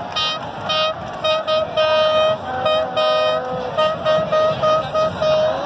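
Horns honking over crowd noise, one horn sounding again and again in a rhythm of short and longer toots, with a second, lower horn joining briefly in the middle.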